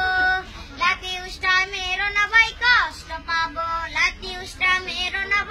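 A boy singing a Bengali folk-style song solo and unaccompanied, holding long sliding notes.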